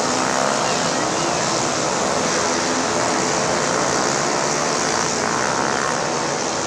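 Several tuned 130 cc automatic scooters racing at high revs together. Many overlapping engine notes make a loud, steady sound.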